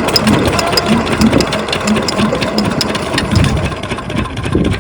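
Diesel engine of an irrigation water pump set running steadily, with an even beat of about three to four firing pulses a second, as it pumps water.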